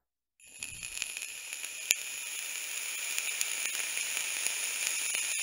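Vape atomizer coil in a SMOK tank firing on a box mod, its e-liquid sizzling and crackling with sharp pops, the loudest about two seconds in. The sizzle starts about half a second in and cuts off near the end, fired without inhaling.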